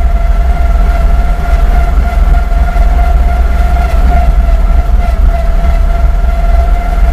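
Homemade self-propelled vehicle driving along in fifth gear: its engine and drivetrain run loud and steady, a deep rumble with a steady high whine over it.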